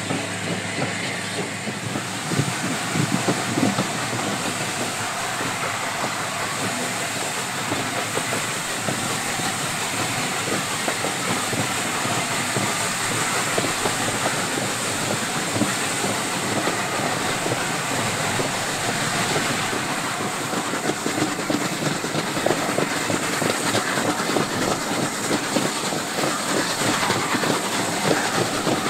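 A steam-hauled train under way, heard from an open coach window, with the carriage wheels clattering over the rail joints and the exhaust and steam hiss of the LNER A4 Pacific No. 60007 Sir Nigel Gresley working ahead.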